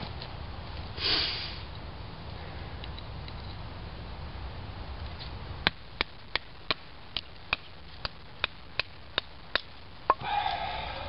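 Batoning cedar: a wooden baton knocking on the spine of a knife driven down through a cedar split on a brick, about a dozen sharp knocks at about two and a half a second, starting just past halfway. A brief breathy noise comes about a second in.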